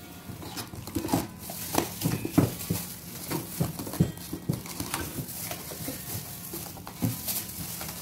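Plastic cling film pulled from a roll, stretched over a bowl of dough and pressed down by gloved hands, with irregular crinkling and light knocks against the bowl.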